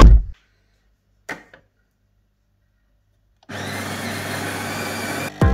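Jura bean-to-cup coffee machine's built-in grinder running steadily, starting about three and a half seconds in as it grinds beans for a coffee. A single short click comes before it, after near silence.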